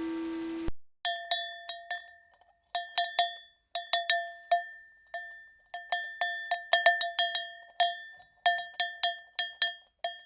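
Alarm sound effect: a struck metal bell tone hit in quick clusters of two to four strokes with short gaps, each stroke ringing briefly at the same pitch. It comes in right after a sustained chime from the previous effect cuts off, a little under a second in.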